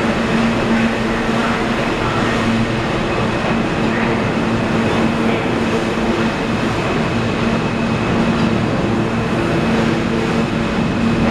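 R160 subway train departing, its cars running past on the rails with a loud, steady noise and a steady hum running through it.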